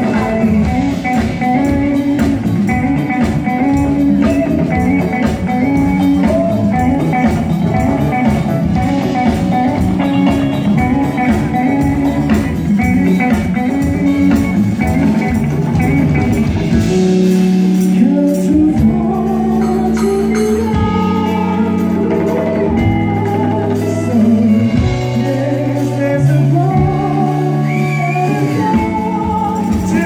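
Live band with vocals, electric guitar and drum kit playing an upbeat song. About halfway through, the busy groove gives way to slower held bass notes that step from one to the next, with singing on top.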